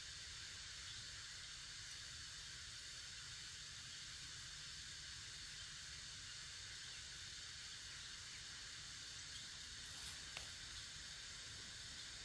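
Faint, steady hiss with a low rumble beneath it, with a couple of faint small clicks about ten seconds in.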